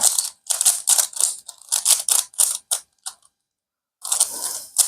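Rapid clicking and clacking of a non-magnetic Rubik's cube's layers being turned fast, several turns a second. There is a short pause about three seconds in, then a dense burst of turns.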